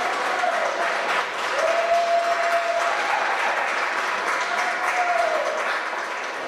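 Congregation applauding steadily, with three long held tones rising over the clapping.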